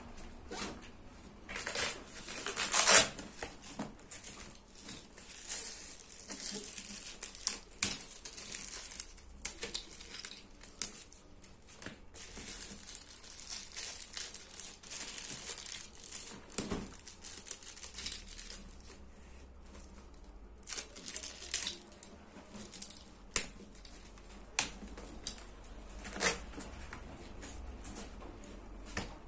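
Plastic and nylon fabric crinkling and rustling as a square delivery backpack is unpacked and handled, with scattered short clicks and a louder rustle about three seconds in.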